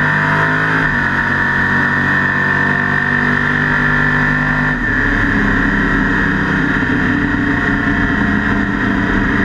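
Drag race car's engine running steadily at low revs as the car rolls slowly, heard from inside the caged cockpit. Its note changes abruptly about five seconds in.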